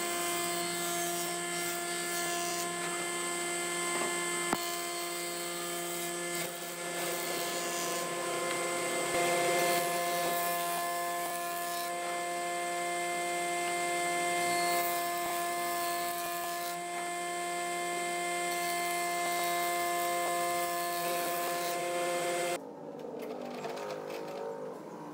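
Electric power tool motor running steadily with a constant hum and a noisy hiss of tool work over it. Near the end the steady hum stops and a quieter, uneven sound takes over.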